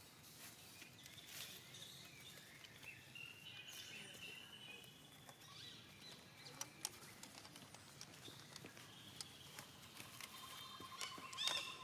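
Faint outdoor ambience with thin, high-pitched animal calls, some of them gliding, coming a few at a time, plus scattered soft clicks.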